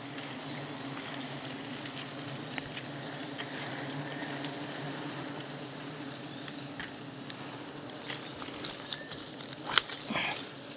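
Bees buzzing in a steady low hum, with a thin high insect whine above it and scattered small clicks and taps; a sharper click about a second before the end.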